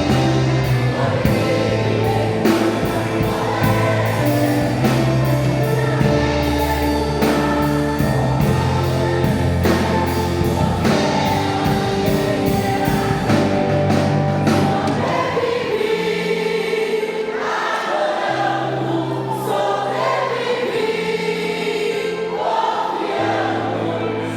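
Church choir singing a gospel hymn with instrumental accompaniment. The bass and beat drop back about halfway through, leaving the voices more exposed.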